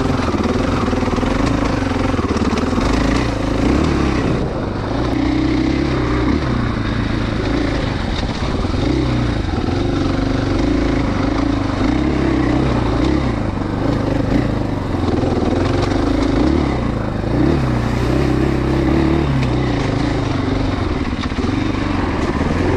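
2019 KTM 500 EXC-F's single-cylinder four-stroke engine running on and off the throttle as the dirt bike is ridden over a rocky trail, its pitch rising and falling constantly.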